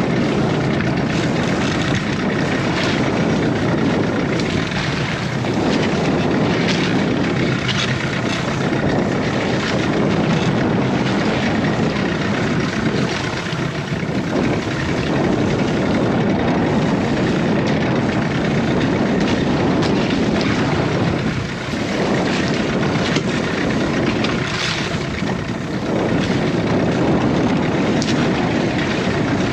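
Small fishing boat's engine running steadily, kept on to hold the boat against a strong current, under a loud, even rush of noise that dips briefly twice in the second half.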